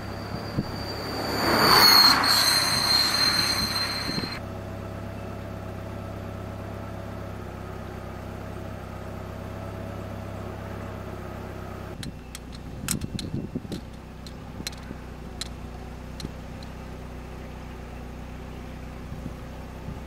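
A vehicle passing by, its noise swelling and fading over about four seconds with a steady high whine on top, over a steady low hum. Later comes a scatter of sharp clicks.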